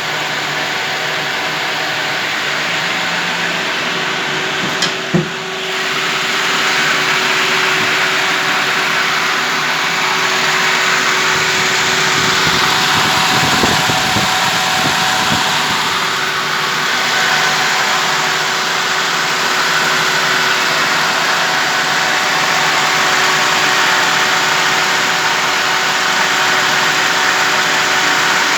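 A GAZelle's ZMZ-406 four-cylinder petrol engine idling steadily, with one sharp click about five seconds in.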